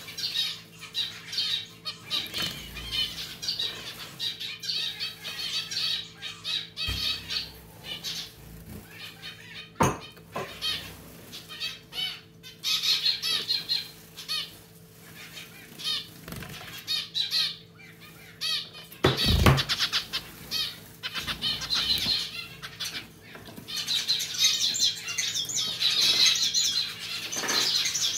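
Zebra finches bathing in a pet water fountain: repeated bursts of wings splashing and fluttering in the water, with one louder thump about two-thirds through. Zebra finch calls sound near the start and grow busiest near the end, over a steady low hum.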